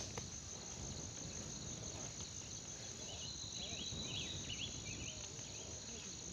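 Insects, crickets or similar, trilling steadily with a fast, even pulse over a low background rumble. A few short high chirps come in around the middle.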